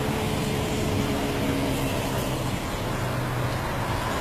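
Steady road-vehicle engine and traffic noise with a low engine hum.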